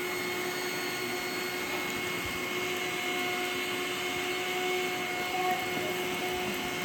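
Two iRobot Roomba robot vacuums, an S9+ and a J7+, running together: the steady rush of their suction fans and brushes, with a steady whine.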